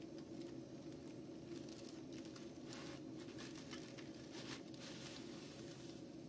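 Faint crinkling of a paper bakery bag being handled, a few soft crackles about three seconds in, over a steady low hum.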